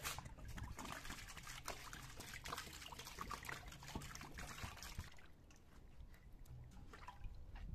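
Water poured in a stream from a clay jug into a wide metal basin, splashing over tomatoes and lemons. The pouring stops about five seconds in, followed by a few light knocks near the end.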